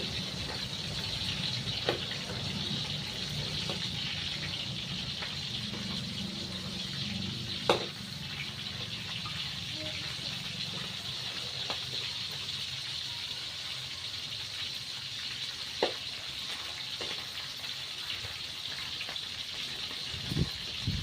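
Fish frying in hot oil, sizzling steadily, with a few sharp clicks or pops, the loudest about eight seconds in.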